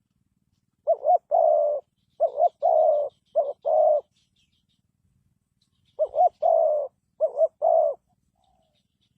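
Spotted dove cooing in repeated phrases, each a short coo followed by a longer one. Three phrases come in quick succession, then about two seconds of pause, then two more. A faint, rapid high twitter from a small bird runs under the first set of phrases.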